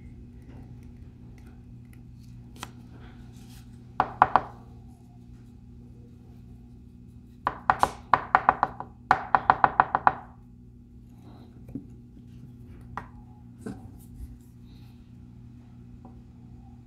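Sharp light taps and clicks from a small carved wooden fishing lure being handled on a workbench: three quick taps about four seconds in, then a fast run of about fifteen clicks at roughly six a second. A steady low hum runs underneath.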